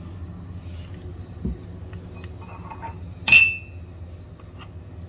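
A steel spoon clinks once sharply against cookware a little over three seconds in, ringing briefly, with a duller knock about a second and a half in and a few faint light taps between.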